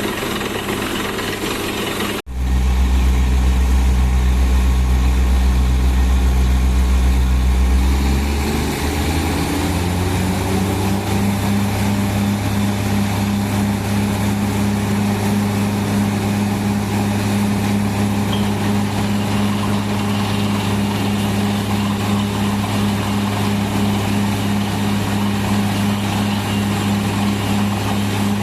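Drilling rig's engine running steadily. The sound breaks off abruptly about two seconds in and comes back at a lower pace. A few seconds later the engine speeds up, its pitch rising, and then holds at the higher speed.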